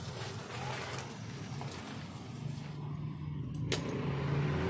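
Low, steady engine hum that grows gradually louder, with a single sharp click about three and a half seconds in.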